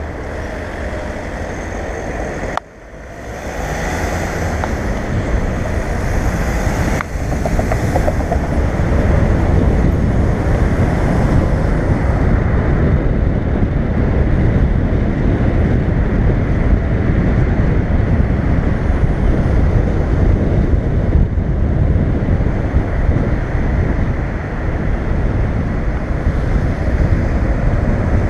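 Wind buffeting an action camera mounted outside on a car's roof, mixed with road and traffic noise as the car drives through city streets. It grows louder over the first several seconds as the car pulls away from a stop and picks up speed, then stays a steady heavy rumble.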